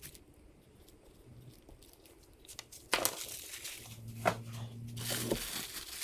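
Handling noise at a workbench as piston assemblies are swapped on a scale. The first three seconds are nearly quiet. Then comes a sharp knock, followed by irregular rustling and scraping, with another knock about a second later.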